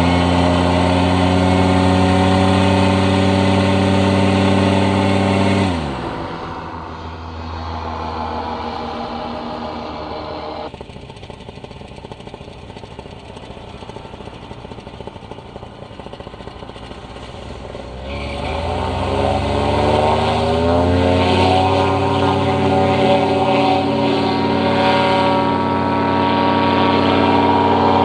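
Paramotor's two-stroke engine running at high throttle, then throttled back about six seconds in to a quieter rushing sound. About eighteen seconds in the pitch rises as it is throttled back up, and it then holds steady at full power.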